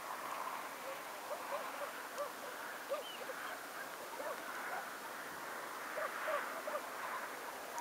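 Whooper swans giving short honking calls, many in an irregular series, over a steady background hiss.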